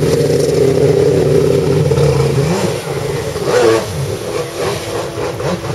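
Stand-up jet ski engine running at high revs and steady for about two and a half seconds, then dropping and revving up again in short surges as the craft turns, with water spray rushing.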